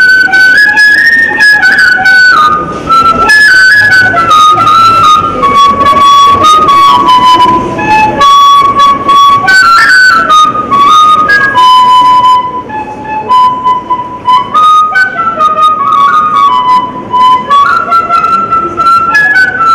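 Bamboo flute (pullanguzhal) blown through the nose, playing a slow melody of single notes that step down and back up, amplified through a microphone. It goes softer for a moment a little past the middle.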